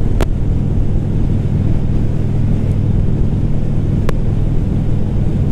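2018 Indian Chief Classic's air-cooled Thunder Stroke 111 V-twin running steadily at cruising speed, mixed with wind noise from riding. Two faint clicks, one just after the start and one about four seconds in.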